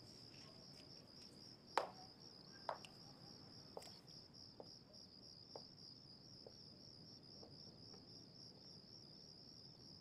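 Crickets chirping steadily, with a woman's high-heeled shoes clicking on stone paving, about one step a second, growing fainter as she walks away.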